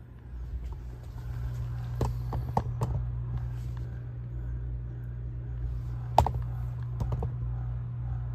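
Steady low hum of lab equipment, with a few sharp clicks and knocks from handling, the loudest about six seconds in.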